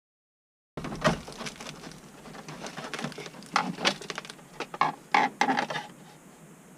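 A quick, irregular run of sharp knocks and clicks starting about a second in, with a loud clack near the start and a cluster of louder ones in the second half.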